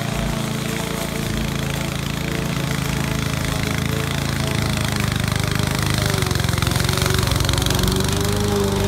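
Honda self-propelled lawn mower's petrol engine running steadily under load while cutting long grass, growing louder about six seconds in as the mower comes closer.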